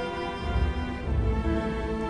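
Background music with held notes over a pulsing bass line.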